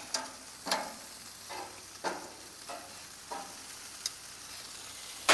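Chicken wings sizzling on a grill as they are turned over: a steady sizzle with a series of short knocks and scrapes, roughly one every half second to a second.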